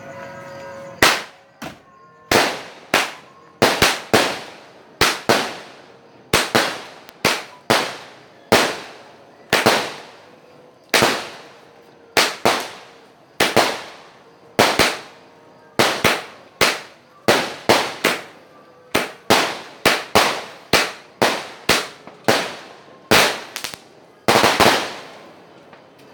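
Rocket fireworks going off in a long, irregular series of sharp bangs, about one or two a second, each dying away in a short echoing tail.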